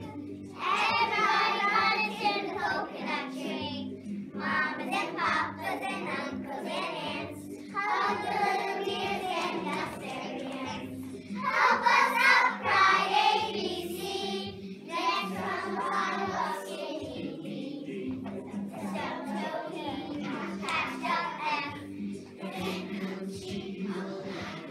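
A class of young children singing a song together over musical accompaniment, with a louder passage about halfway through.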